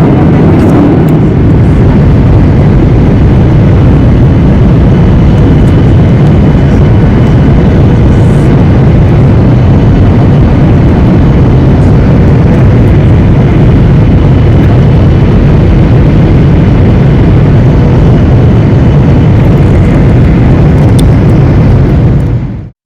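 Airliner cabin noise: the steady, loud roar of the engines and airflow heard from inside the passenger cabin, cutting off abruptly near the end.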